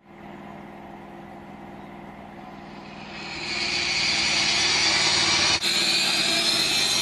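A car approaching at speed for a crash test, its engine noise growing louder from about three seconds in, with a high whine rising in pitch near the end.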